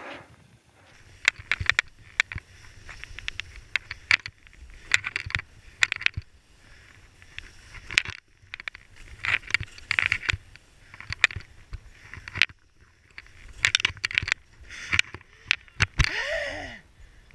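Skis scraping and clattering over firm, crusty snow through a run of turns, heard from a camera worn by the skier, with wind rumbling on the microphone. Near the end there is a short gliding squeal.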